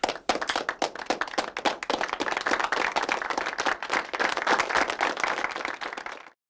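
Applause: many hands clapping in a dense, irregular patter that cuts off suddenly near the end.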